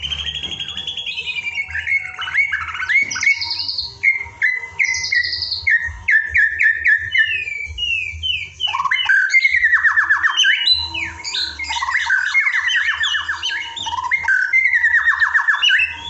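White-rumped shama singing a long, varied song of rapid repeated whistled notes, trills and sliding phrases.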